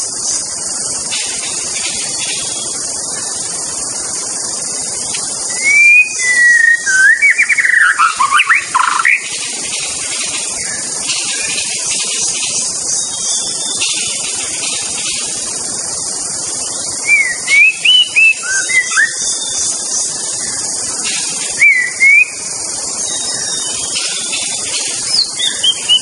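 White-rumped shama singing: four bursts of loud, clear whistled phrases that glide up and down, with pauses between them. A steady high hiss runs underneath.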